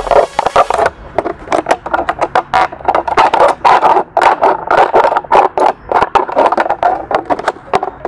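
Knife blade sawing back and forth through a thin plastic PET bottle, a run of rasping, crinkling strokes about three a second.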